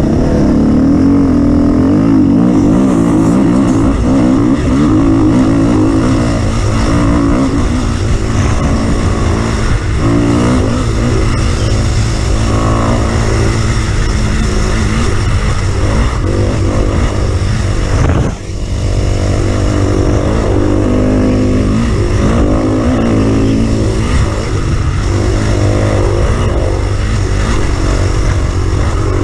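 Off-road vehicle engine running under constantly changing load, its pitch rising and falling as it revs, with heavy low rumble and a brief dip about eighteen seconds in.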